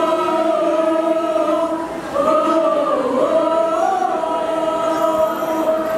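A youth choir of boys and girls singing together, holding long notes that move to new pitches a few times.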